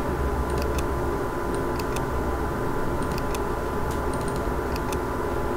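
Computer mouse clicking lightly about ten times at uneven intervals, while on-screen annotations are drawn, over a steady low electrical hum.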